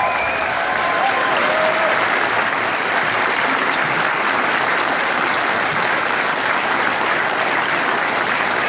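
Theatre audience applauding steadily, a dense even clapping at the end of a dance performance.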